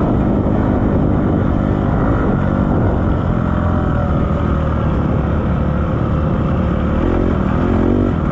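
Dirt bike engine running under load as the bike is ridden, loud and close, with the revs climbing near the end.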